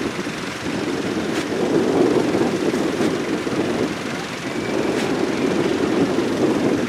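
The diesel engine of farm machinery runs in a rice field, a steady rumble that swells and eases off over a few seconds.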